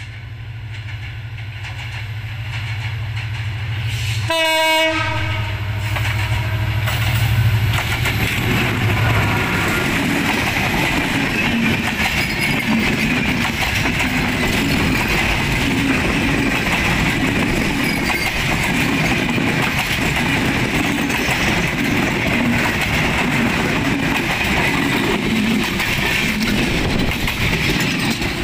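Passenger train approaching and passing close by: the locomotive's engine hum grows louder, with one short horn blast about four seconds in. The coaches then roll past with a steady rumble and a rhythmic wheel clatter over the rail joints.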